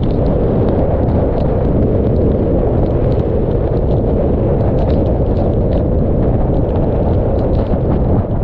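Hurricane eyewall winds blasting across a roof-mounted camera's microphone: a loud, steady wind noise with no letup. Many small ticks of rain strike the camera over it.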